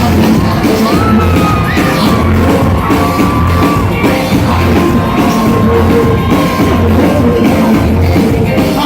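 Loud live concert music with a heavy bass beat about once a second and a long held high note through most of it.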